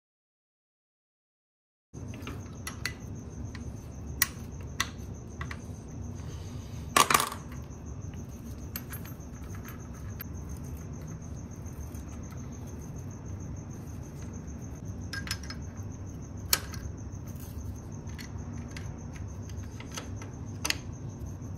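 Steel wrench clicking and clinking against the nut and bolt of a motorcycle engine mount as it is tightened, a few scattered metal taps with a louder cluster about seven seconds in. The taps come over a steady hiss and a faint, steady high-pitched whine. The sound starts after about two seconds of silence.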